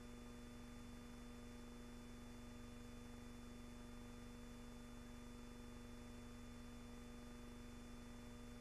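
Near silence: a steady hum over faint hiss, with no bursts or shots.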